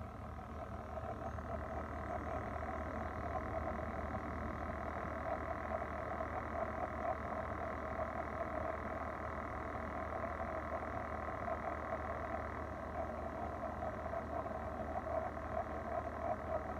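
Electrolux refrigerator running with a low hum and several steady tones under a rapid rattling buzz, swelling over the first couple of seconds. It is the noise that keeps coming back even after the fan and compressor were replaced.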